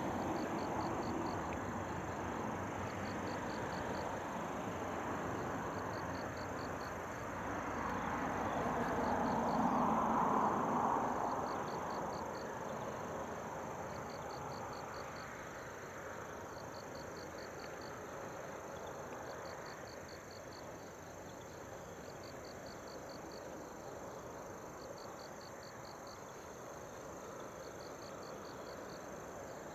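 Insects chirping in short high-pitched trills of rapid pulses, repeating about every one and a half to two seconds, over a steady rushing background. A broad rushing sound swells and fades about ten seconds in.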